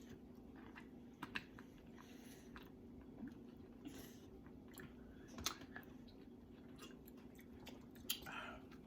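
Soft chewing of food, with scattered small clicks from utensils, over a faint steady hum.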